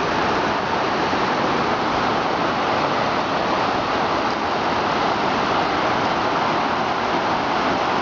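Whitewater rapids of the Suwannee River rushing over limestone shoals: a loud, steady roar of churning water.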